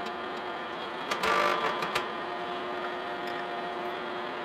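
Soft-face mallet knocking the cast iron drill press table to nudge it into alignment under a dial indicator, over the steady hum of the running boring mill. The louder knock, with a short rattle after it, comes about a second in, and a sharper knock follows at about two seconds.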